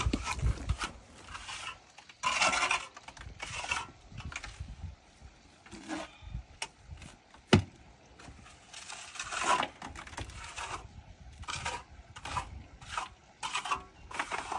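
Irregular scraping and rubbing with scattered clicks, and one sharp knock about seven and a half seconds in.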